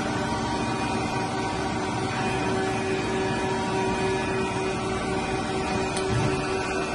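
Haitian HTF86X hydraulic plastic injection moulding machine running: a steady hum with several held tones over an even mechanical noise.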